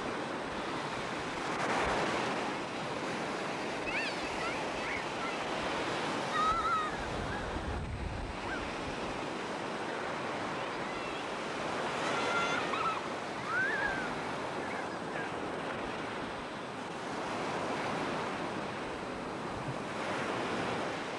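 Ocean surf breaking and washing onto a sandy beach, a steady rush that swells now and then, with wind buffeting the microphone.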